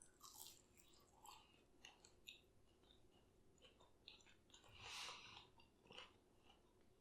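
Faint mouth-close chewing of a Cheetos-crusted boneless chicken wing: scattered small wet clicks and light crunches, with a slightly louder soft rush about five seconds in.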